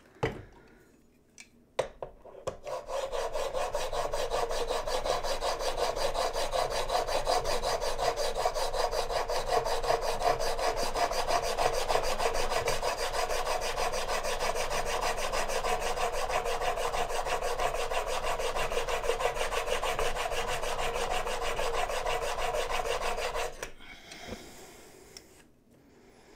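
Plane blade clamped in a honing guide scraped back and forth on a wet Trend diamond sharpening plate in fast, even strokes for about twenty seconds, grinding the bevel flat to take out a slight hollow left by a Tormek wheel grinder. The strokes stop sharply near the end, followed by a brief softer rustle as a rag wipes the plate.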